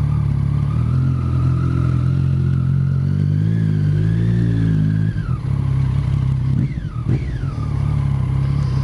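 Triumph motorcycle engine under way, revs climbing steadily for about five seconds before the throttle closes. A couple of quick falling whines follow about seven seconds in, then the engine runs steadily.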